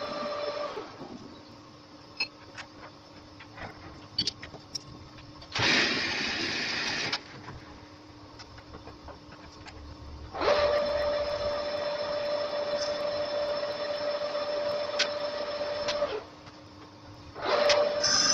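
Metal lathe cutting an aluminium pulley blank. Between cuts the lathe runs with a faint steady hum and light clicks. A short loud noisy cut comes about six seconds in, and a longer cut of about six seconds starts around ten seconds in, with a steady ringing tone and a high whine. Another cut begins near the end.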